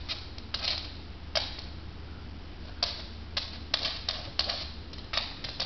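A small dog's toenails clicking on a hardwood floor as it moves and paws about: about ten sharp, irregular clicks over a low steady hum.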